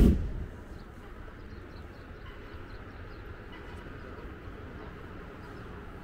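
A hot-air balloon's propane burner roaring, then cutting off about half a second in, leaving a faint steady low rumble.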